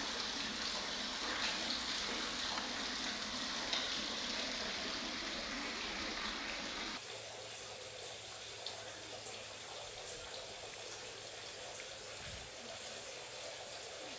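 Water trickling and dripping with a steady hiss inside a stone well. About halfway through it cuts suddenly to quieter outdoor background noise.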